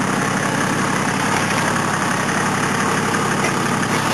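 Toyota Land Cruiser 80's engine running steadily without revving, the 4x4 sitting almost still in a steep, muddy rut.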